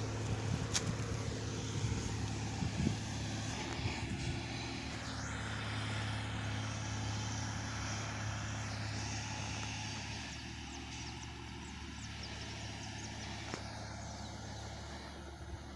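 Diesel engine of a Plasser track levelling machine running steadily, a low even hum that eases off slightly about ten seconds in.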